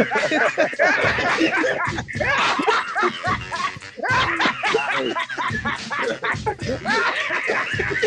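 People laughing loudly over background music with a steady beat.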